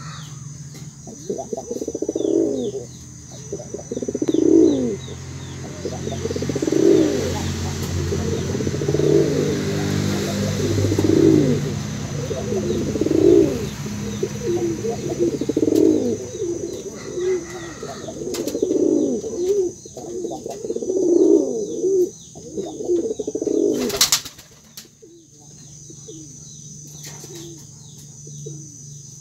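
Male domestic pigeon cooing to call a hen, a low rolling coo repeated about every two seconds, then stopping near the end. Faint small-bird chirps sound behind it, and a single brief loud noise comes just before the cooing stops.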